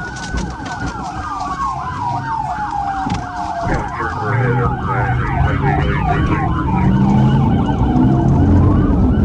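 Police cruiser siren: a slow wail rising and falling about every four seconds, overlaid for much of the time by a faster yelp sweeping several times a second. Engine and road noise run underneath and grow louder in the second half as the car speeds along.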